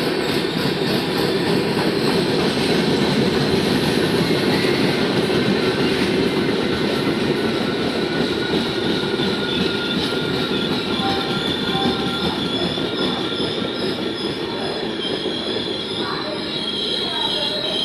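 Passenger express train rolling on the rails, a steady loud rumble of coaches and wheels, with thin high-pitched wheel squeal coming in over the last few seconds.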